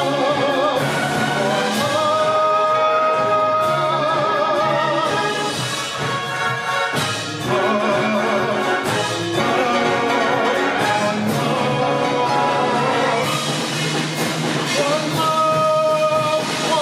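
Concert wind band playing, with a tenor voice singing long held notes with vibrato over the band.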